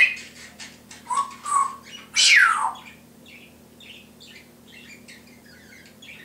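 Timneh African grey parrot vocalizing: a few short loud calls, then a loud call that slides down in pitch about two seconds in, followed by a run of soft, quick chirps and clicks.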